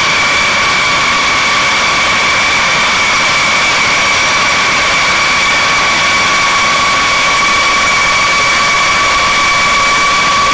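A B-52H Stratofortress's eight Pratt & Whitney TF33 turbofan engines running at taxi power: a loud, steady high-pitched jet whine over a broad hiss.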